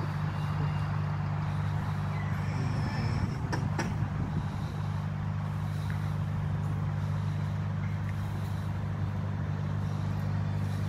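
Steady low hum, with a short knock about three and a half seconds in.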